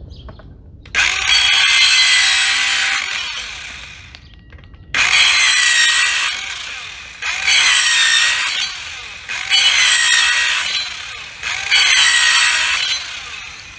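Cordless compact circular saw with a soft-metal/plastic blade making five cuts in a row through a piece of plastic. Each cut is a loud burst of high-pitched motor and blade whine with the pitch gliding as it takes load, and the first cut is the longest.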